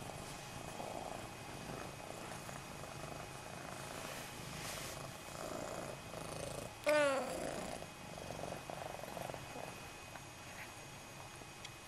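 Snowshoe cat purring steadily while being stroked, with one short meow falling in pitch about seven seconds in.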